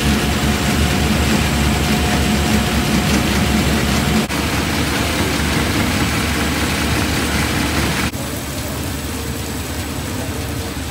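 Pellenc grape-processing machinery running: a roller sorting table and destemmer with a steady motor hum and the rattle of grapes moving over the rollers and dropping into the bin. The sound changes abruptly about 4 seconds in and again about 8 seconds in, a little quieter after the second change.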